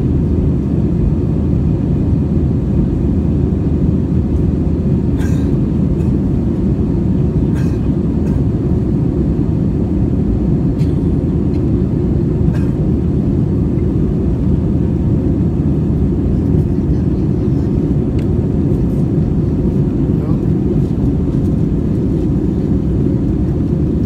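Airbus A320 cabin noise in the climb after takeoff: a steady, loud low roar of engines and airflow, with a few faint clicks.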